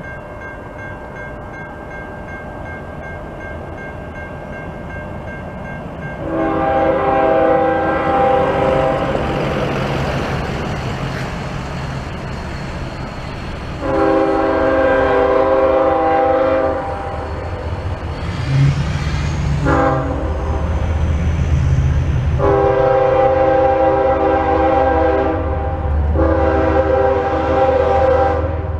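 Norfolk Southern ES40DC diesel locomotive's air horn sounding the grade-crossing signal as the train approaches: two long blasts, one short blast, then a last long blast that breaks briefly and carries on, all over a steady low rumble.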